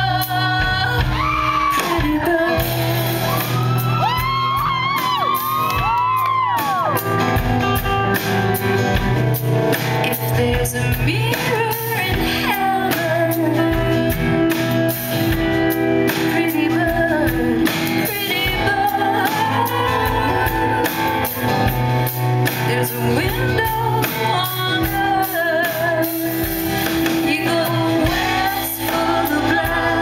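Live band performance: a woman singing into a microphone over drums, cymbals and guitar, heard from within the audience in a large hall.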